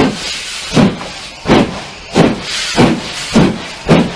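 BR Standard Class 4 2-6-4 tank locomotive 80151 pulling away under steam: about seven sharp exhaust chuffs with steam hiss between them. The chuffs quicken from nearly a second apart to about half a second as the engine gathers speed.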